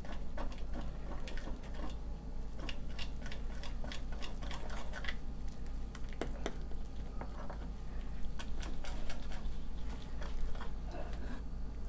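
Metal spoon stirring wet gram-flour (besan) batter in a dish, with many small irregular clicks and scrapes of the spoon against the dish, over a low steady hum.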